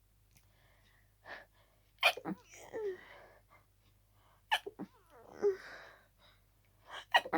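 A person sneezing hard and fast in a sneezing fit from a cold. There are three sharp sneezes about two and a half seconds apart, each followed by a short voiced breath.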